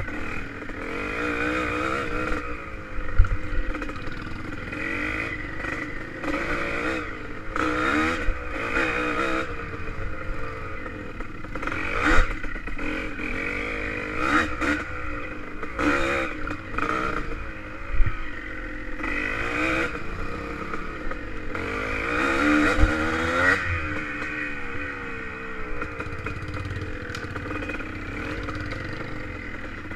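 1985 Yamaha IT200's two-stroke single engine revving up and down as the bike is ridden over rough trail, with clatter and several sharp knocks from the bumps.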